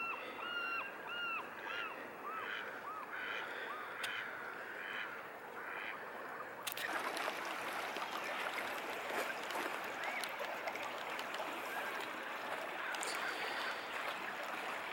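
Waterfowl calling in a run of short, arched honks, about three a second. Near the middle the calls cut off suddenly and give way to a steady rushing noise, with a few faint calls over it.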